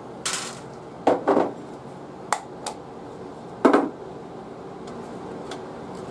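Metallic clinks and knocks as pliers, freshly cast lead slugs and an aluminium slug mold strike an aluminium pie pan at a lead-casting bench. About six separate knocks, the loudest a little past the middle.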